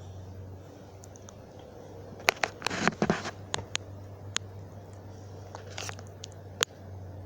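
Scattered sharp clicks and crackly rustling over a steady low hum, thickest about two to three seconds in, with a few single clicks after; no siren is sounding yet.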